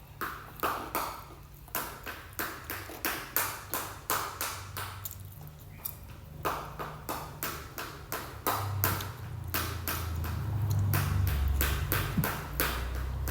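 Close-up eating sounds: chewing sesame fried chicken, a rapid irregular run of sharp mouth clicks and smacks, a few a second, over a low hum.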